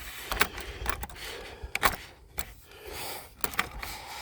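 Several irregular sharp snaps and clicks over faint rustling, as of someone moving through dry brush and briars.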